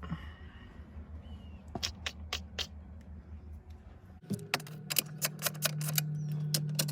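A series of sharp clicks and taps over a steady low hum: four about two seconds in, then after an abrupt change in the background hum about four seconds in, a quick irregular run of many more.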